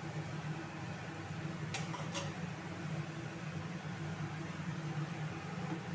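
Steady low hum of a small motor, with two faint clicks about two seconds in.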